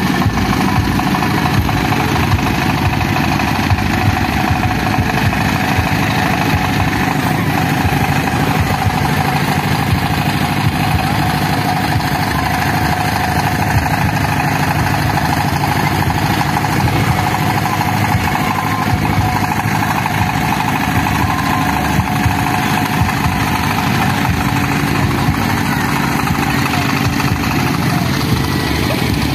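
Engine-driven generator set on a towed trailer running steadily, mixed with idling vehicle engines: a continuous, even drone with no change in speed.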